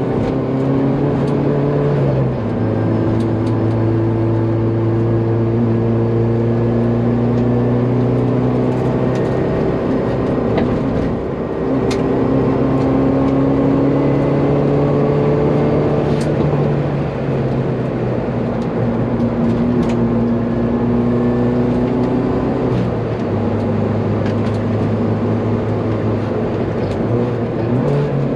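Hyundai Veloster N 2.0-litre turbocharged four-cylinder, swapped into a Hyundai Excel, running hard on track, heard inside the cabin. Its note climbs slowly and steps at gear changes about two, eleven and twenty-three seconds in, with a few sharp clicks.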